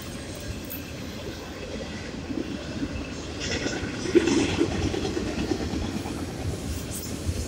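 Double-stack intermodal freight cars rolling past at close range, steel wheels rumbling and clacking on the rails. The sound grows louder about halfway, with a sharper peak about four seconds in.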